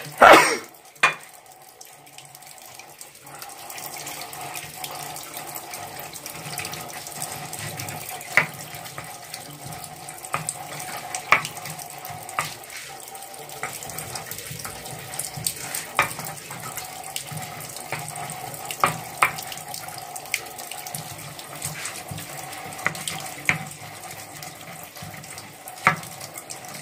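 Stone pestle (ulekan) grinding and crushing tomatoes, chilies and shallots in a stone mortar (cobek): a steady wet scraping and rubbing, with sharp clacks of stone on stone every few seconds, the loudest about the start.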